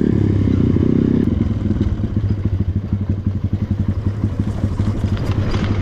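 Off-road trail motorcycle engine running at steady revs, then easing off about a second and a half in to a low, pulsing putter at low revs.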